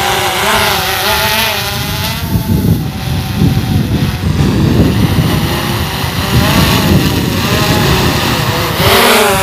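DJI Phantom 4 Pro quadcopter's propellers and motors buzzing in flight, a whine whose pitch wavers up and down as the motors change speed, over a low rumble.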